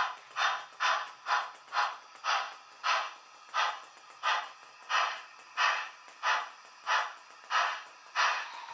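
H0 Märklin model steam locomotive's sound module chuffing, in a steady rhythm of hissing steam beats about one and a half a second. The beats slow slightly as the locomotive comes in.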